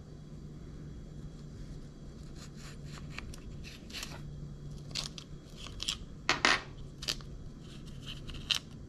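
Small plastic and metal clicks and taps as the old carburetor and its air-filter housing are worked loose by hand from a Ryobi RY253SS trimmer's intake. A few sharper knocks come past the middle, over a steady low hum.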